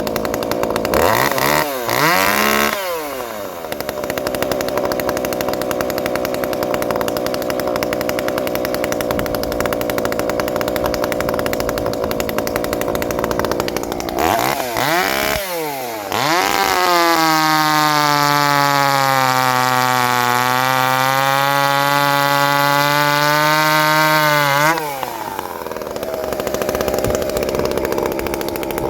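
Two-stroke chainsaw running at idle with a couple of quick throttle blips, then held at high revs for about eight seconds, the pitch sagging slightly in the middle, before dropping back to idle.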